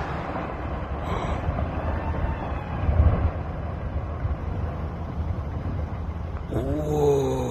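Rumbling noise of a rockfall's aftermath, as falling rock and debris from a truck-sized boulder settle, with one dull thump about three seconds in and a brief voice near the end.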